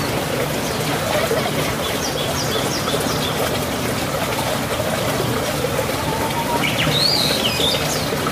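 A steady hiss like running water, with short high bird chirps twice: a quick series of falling chirps a couple of seconds in, and a rising, warbling call near the end.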